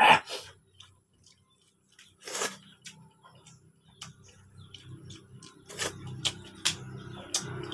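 Close-up eating sounds of a man eating rice and noodles by hand: wet chewing, lip smacks and small clicks, with a louder smack right at the start. An engine is heard growing louder near the end.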